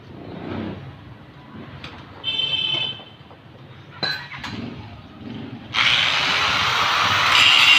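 A handheld electric angle grinder is switched on almost six seconds in and runs loud and steady after some light handling clatter and a brief squeak.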